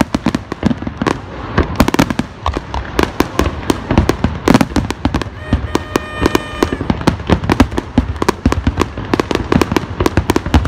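Aerial fireworks display: a dense, continuous run of sharp bangs and crackles from shells bursting, several a second.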